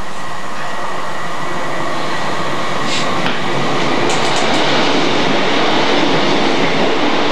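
A train running past the signal box, its rail noise swelling over the first few seconds to a peak near the end, with a few short clicks about three and four seconds in. Heard from inside the signal box.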